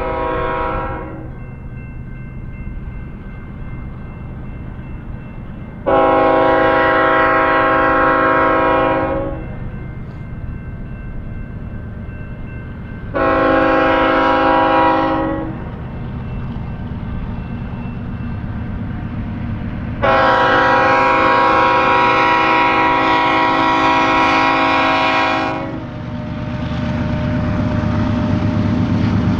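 BNSF diesel locomotive's multi-chime air horn sounding the grade-crossing signal: the tail of a long blast, then a long blast, a short one and a final long one of about six seconds. The diesel engines' low rumble grows louder near the end as the locomotives pass close by.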